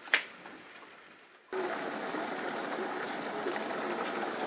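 A single sharp click just after the start, then from about a second and a half in, heavy rain falling steadily onto a hard patio floor.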